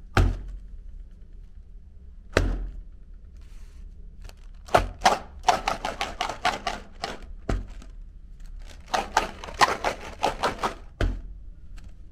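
Plastic tubes of chocolate candy balls set down on a tabletop with about five sharp knocks, and the candy balls clicking and rattling inside a tube as it is tilted and turned, in two quick runs of clicks about five and nine seconds in.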